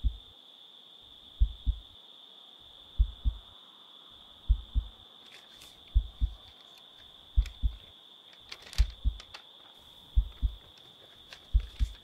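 Slow heartbeat sound effect: paired low thumps, lub-dub, about every second and a half, nine beats in all. A steady high-pitched whine runs under them, and faint light rustling and clicks come in around halfway.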